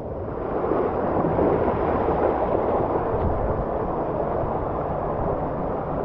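Steady rushing of water and air during a ride down a pool waterslide, building up over the first second as the slide gets going.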